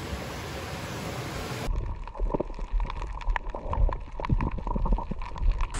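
Underwater sound picked up by a camera below the surface: a dull steady wash, then, from about two seconds in, muffled gurgling with many irregular bubbly clicks and pops over a low rumble.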